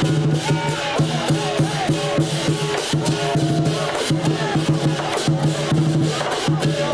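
Chinese lion dance percussion: drums beaten in rapid strikes together with ringing gongs, playing continuously.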